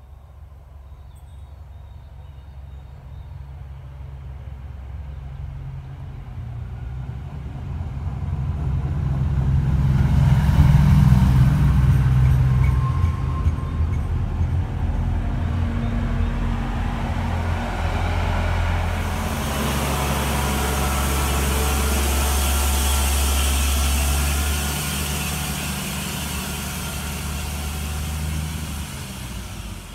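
SU45 diesel locomotive hauling a passenger train, coming closer with its engine drone growing steadily louder over about ten seconds. It then runs loud and steady past the listener, and a rushing noise from the train joins the engine drone about two-thirds of the way through.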